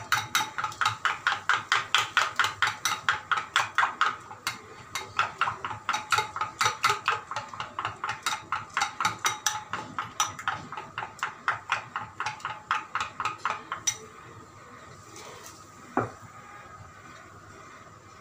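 A spoon beating yogurt in a bowl, clicking against its side in a fast, even rhythm of about four or five strokes a second. The beating stops about fourteen seconds in, and a single knock follows a couple of seconds later.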